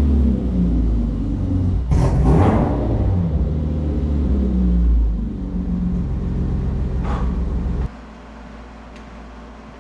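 BMW E30's engine running with a brief rush of noise about two seconds in, then switched off abruptly about eight seconds in, leaving only a faint steady hum.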